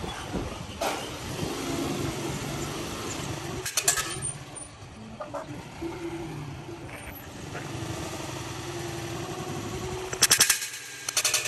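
Steel motorcycle top-box bracket dropped from a fourth-floor rooftop hitting the concrete road, a brief metallic clatter about four seconds in, over steady street and traffic noise. A louder crackling burst comes near the end.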